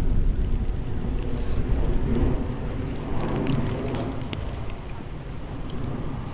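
Steady rain with wind rumbling on the binaural microphones, strongest in the first two seconds, and scattered sharp raindrop ticks in the second half.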